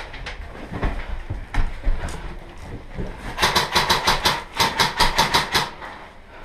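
Airsoft MP5K firing a rapid string of about fifteen sharp shots, starting about three seconds in and lasting a little over two seconds. A few scattered clicks come before it.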